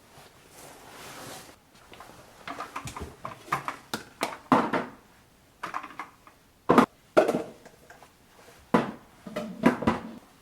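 A brief soft rustle, then an irregular run of knocks and clatters as hard household items are handled and set down, the loudest knocks about seven seconds in and again near nine seconds.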